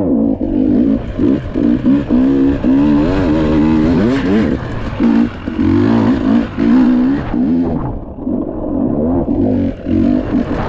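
Off-road motorcycle engine revving as it is ridden, its pitch rising and falling over and over, with the throttle cut back briefly several times.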